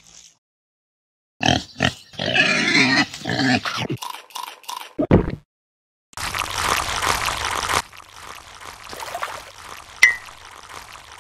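Added sound effects for a stop-motion eel: an animal-like noise with a wavering pitch from about a second in, then a low thud. Later comes a rushing hiss lasting about a second and a half, and a click near the end.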